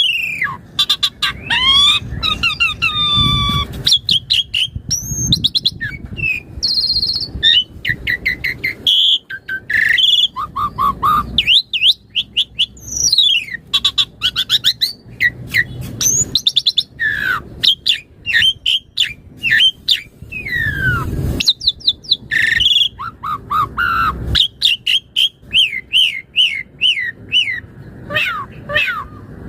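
Asian pied starling (jalak suren) singing in full voice: a varied, unbroken run of clear whistles gliding up and down, fast series of short repeated chirps, and harsh squawks, with only brief pauses.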